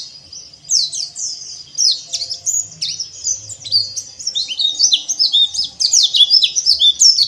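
White-eyes (pleci) singing a rapid, busy chatter of high chirps, each a quick sweep up or down, coming thicker and louder from about halfway through.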